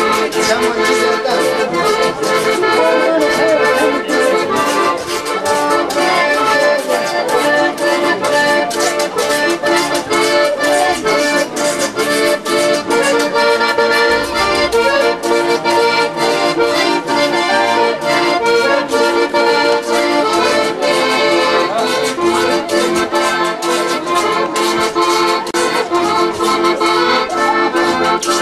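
Accordion playing a traditional tune, with a quick, even beat that runs on without a break.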